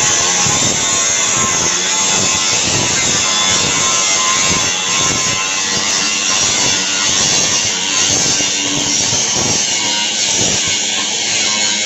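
Suzuki APV's G16A engine running with a loud, rough, rasping exhaust noise, the catalytic converter and muffler noise being diagnosed.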